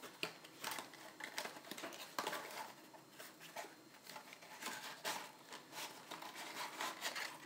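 Cardboard and plastic retail packaging being handled and slid apart as the box is opened: faint rustling and scraping with scattered small clicks.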